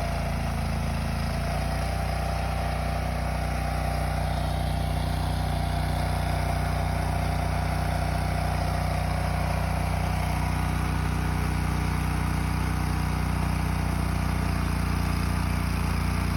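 Trencher engine running steadily under a constant load, its note shifting slightly a couple of seconds in.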